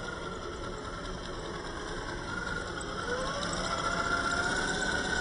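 Electric motor and geared drivetrain of a Traxxas TRX-4 RC crawler whining as it drives, the pitch rising about three seconds in as it speeds up.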